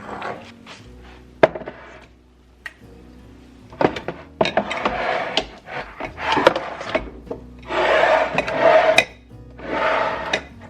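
Things being handled and slid against hard surfaces: a run of rubbing and scraping noises with sharp clicks, the longest and loudest near the end. Soft background music plays underneath.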